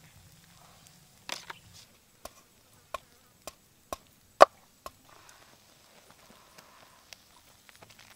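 A large kitchen knife chopping on a thick wooden chopping board: a brief scrape about a second in, then six sharp knife strikes about half a second apart, the fifth the loudest.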